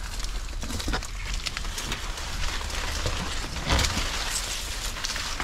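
Leaves and dry leaf litter rustling and crackling as someone pushes through dense fern undergrowth on foot, with a louder brush or knock about four seconds in.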